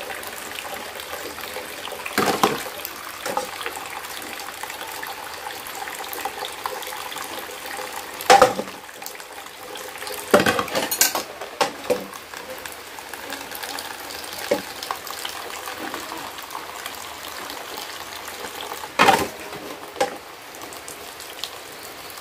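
Hand dishwashing: a thin stream of tap water runs steadily into a plastic basin while soapy ceramic plates and plastic bowls are scrubbed. Now and then comes a sharp clink or knock as dishes are set down against each other, the loudest about 8 seconds in and again near 19 seconds.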